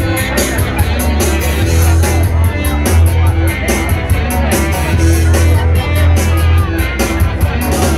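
Loud live band music, an instrumental passage between sung verses: a heavy bass line and a steady beat, with guitar and keyboard.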